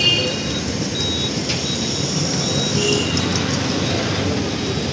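Steady outdoor city street noise with a traffic rumble and a few brief high-pitched tones.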